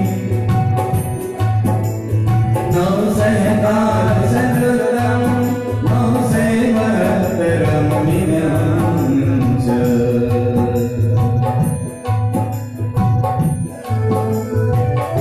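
A man singing a Jain devotional hymn (phoolna) in a chanting style through a microphone and PA. Sustained chords on a keyboard instrument run under the voice.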